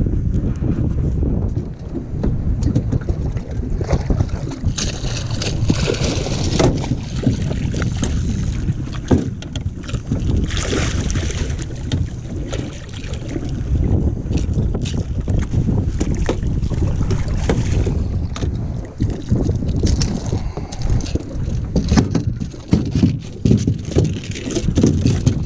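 Wind buffeting the microphone in a steady low rumble, with scattered knocks and two bursts of splashing as a hooked bluefish thrashes at the surface beside the boat.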